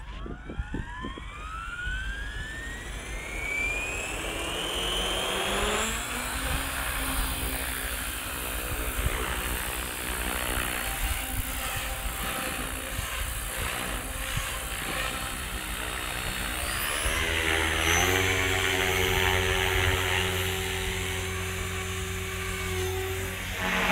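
Beam E5 electric RC helicopter spooling up: the motor and rotor whine rises in pitch over the first several seconds, then settles into a steady whine and rotor buzz as it hovers. About 17 seconds in the pitch steps up and it gets louder.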